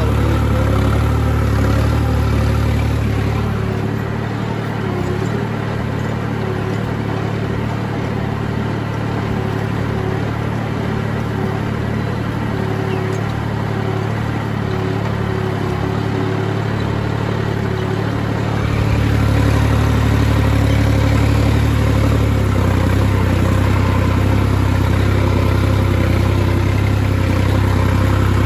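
New Holland 3630 turbo tractor's diesel engine running steadily while pulling a 15-tine cultivator through the soil. It drops a little in level a few seconds in and comes back louder about two-thirds of the way through.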